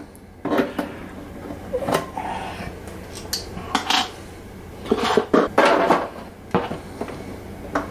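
Metal clicks, clinks and scrapes of pliers working the U-shaped jumper connectors out of an amplifier's preamp-out/power-amp-in jacks. They come as about a dozen separate short clicks, with a busier cluster of scraping a little past halfway.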